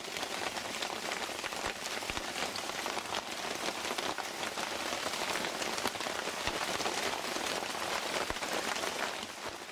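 Steady heavy rain falling, a dense hiss with many single drops ticking through it; it fades out near the end.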